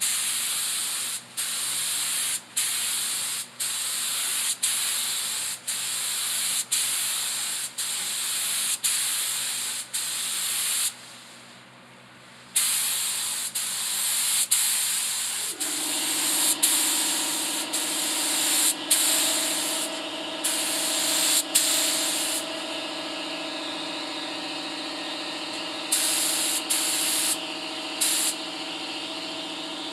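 Paint spray gun hissing as lacquer is sprayed in passes, cut by brief stops about once a second and one longer pause. About halfway through, a steady machine hum starts under the hiss, and the spraying then comes in fainter spurts.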